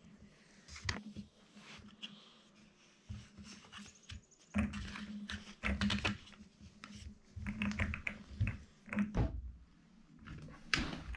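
Irregular clicks, taps and rubbing as hands work a propane regulator, rubber hose and brass fittings onto a gas-pipe tee fitting, with a few louder knocks in the second half.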